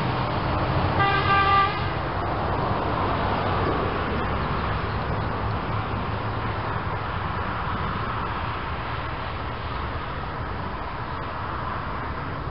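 A single short horn blast about a second in, lasting under a second, over a steady background rumble of vehicles.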